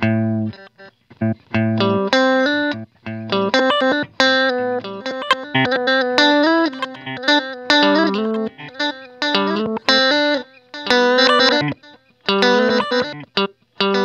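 Electric guitar played through the Line 6 HX Stomp's Glitch Delay, set to a whole-note delay time with the delay division turned up high. The repeats are chopped into stuttering fragments that cut off suddenly again and again, since delay division sets how many times the delay signal is interrupted.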